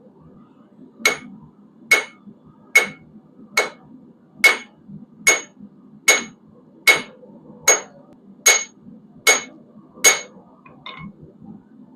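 Blacksmith's hammer striking hot quarter-inch square steel bar stock on an anvil: twelve steady, evenly paced blows a little under a second apart, each with a bright metallic ring.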